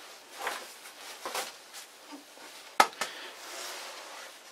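Home-made steel backing plate being screwed by hand onto a lathe spindle nose: soft rubbing and scraping of the gloved hand on the plate, with one sharp metallic click a little under three seconds in.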